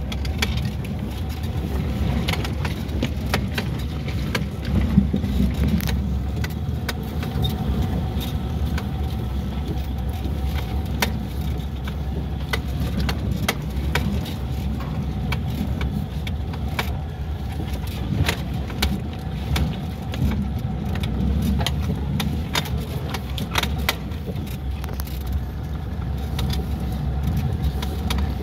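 Car driving slowly over a rutted dirt track, heard from inside the cabin: a steady low engine and road rumble, with frequent sharp clicks and rattles from the body and loose items jolting over the bumps.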